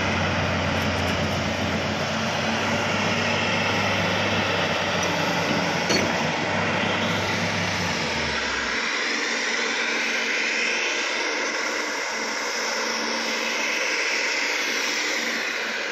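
Crawler excavator's diesel engine running steadily at close range. A single knock comes about six seconds in. A little over halfway through, the deep low rumble drops away, leaving a higher, hissing machine noise.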